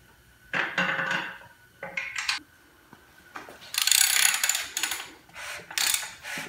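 Metal clicks and rattling in several short bursts, the longest about four seconds in, as a freshly assembled Ford flathead V8 short block is rotated on its engine stand and its crankshaft is turned by hand.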